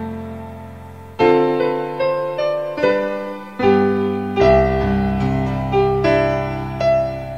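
Background music: slow piano chords, a held chord fading out, then new chords struck about a second in and every second or so after, each dying away.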